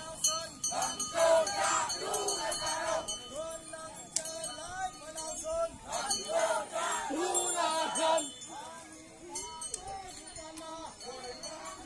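A group of Konyak Naga men chanting a short rhythmic festival dance chant, the same rising-and-falling phrase repeated over and over by many voices, with a constant high jingling over it.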